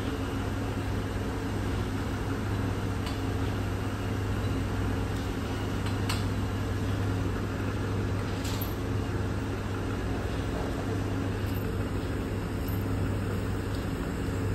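Steady mechanical hum of a papad-making machine's motor running, with a few faint clicks now and then.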